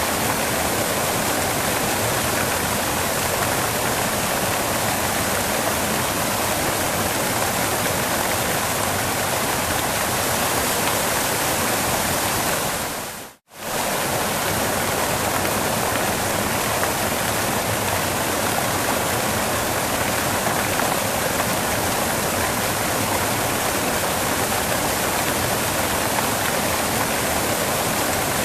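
Waterfall water rushing in a steady, even roar. About halfway through it fades out to silence for a moment and comes straight back.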